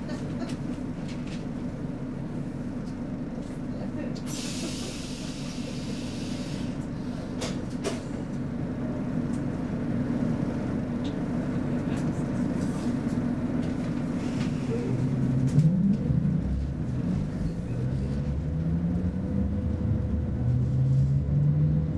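Interior of a Roslagsbanan X10p electric train standing at the platform with a steady low hum, and a hiss of air about four seconds in that lasts a couple of seconds. Over the last several seconds the traction motors set up a whine that rises in pitch as the train pulls away.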